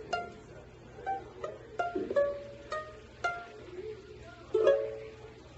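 Music: a plucked string instrument playing a slow line of single notes, each struck sharply and left to fade.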